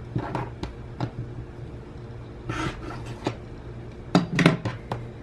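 Light clicks and knocks of a rotary cutter and a quilting ruler being handled and set down on a cutting mat, with a louder cluster of knocks about four seconds in and a brief rustle of cut T-shirt fabric.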